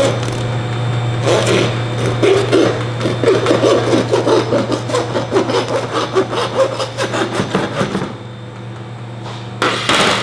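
A blade sawing back and forth through lamb rib bones to cut the breast away from the rack: a rapid, rasping run of strokes that stops about eight seconds in. A short louder knock near the end, over a steady low hum.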